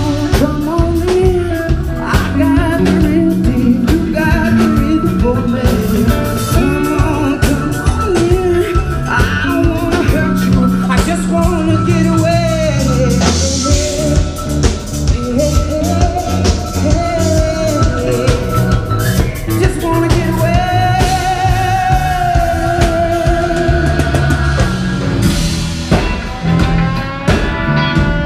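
Live blues-rock band playing loudly: drum kit keeping a steady beat under electric guitars and bass, with a voice singing over them.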